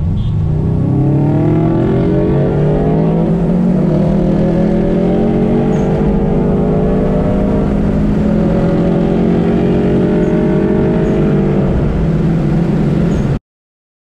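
Subaru WRX STI's turbocharged flat-four engine pulling hard under acceleration, heard from inside the cabin: the engine note climbs in pitch and drops back at each gear shift, then cuts off abruptly near the end.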